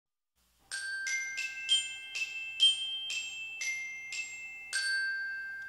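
Chimes struck with a mallet playing a short melody of about ten ringing notes, the last one left to ring out and fade.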